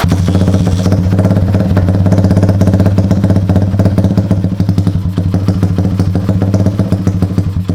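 Big-bore Honda Sonic four-stroke single-cylinder engine idling loudly through an old-school open exhaust, a steady fast-pulsing note that comes in abruptly and holds without revving.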